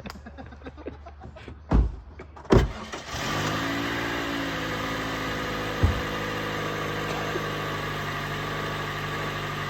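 Two thumps, then a car engine starts about three seconds in, revs briefly and settles into a steady idle, with one more thump a few seconds later.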